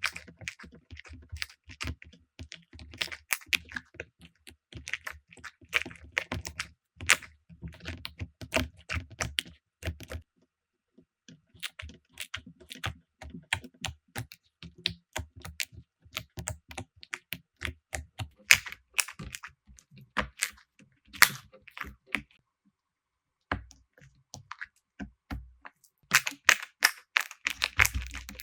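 Slime being squeezed, poked and stretched, giving a dense run of small sticky clicks and crackles. The sound breaks off briefly twice, about a third and four-fifths of the way through.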